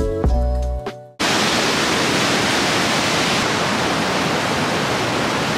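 Background music fades out in the first second, then a hard cut to the steady rush of whitewater tumbling over boulders.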